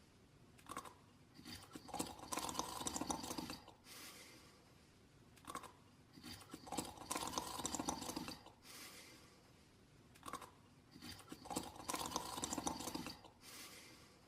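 Cartoon character snoring in slow, even cycles: each time a short rasp and then a longer snore about two seconds long, three times over.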